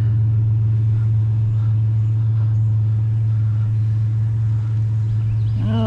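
Truck engine running with a steady low hum, no change in pitch or loudness.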